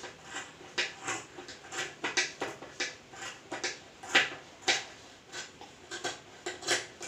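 Tailor's scissors snipping through fabric, a quick, uneven run of short cuts about three a second, with the loudest snips a little past the middle.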